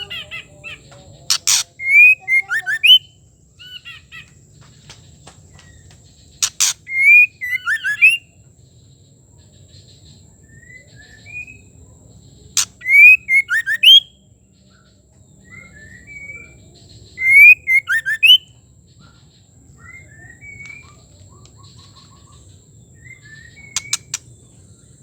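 White-rumped shama singing short bursts of clear whistled phrases, each burst lasting a second or two and coming every few seconds, with sharp loud clicking notes among them.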